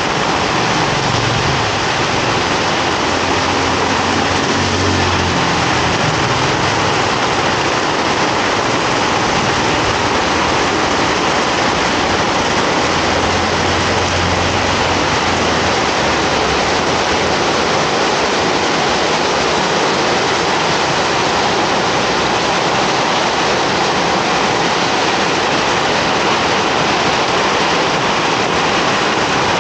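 Heavy rain pouring steadily on the street in a dense, even hiss. Low engine hums of passing motor vehicles come through it over the first several seconds and again about halfway through.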